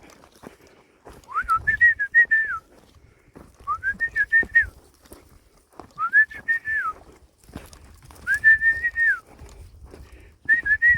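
A man whistling to call cattle: five separate whistles, each about a second long, sliding up, holding high with a slight warble, then dropping away.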